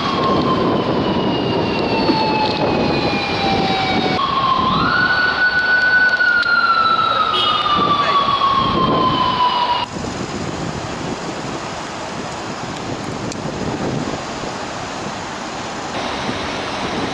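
Japanese police siren wailing over street traffic: two long sweeps, each falling slowly in pitch, the second starting with a quick rise. It cuts off abruptly about ten seconds in, leaving only the steady traffic noise.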